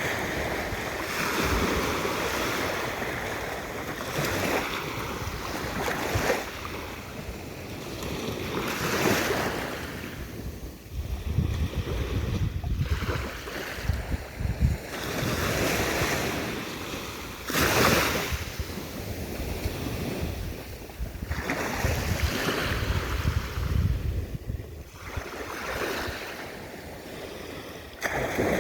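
Ocean waves breaking and washing on a shore, the surf swelling and falling back every few seconds, with wind buffeting the microphone at times.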